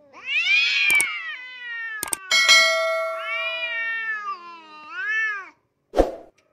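Cats yowling at each other in a standoff, long wavering wails that rise and fall. A round metal pan clangs three times with sharp knocks, one of them left ringing for a moment.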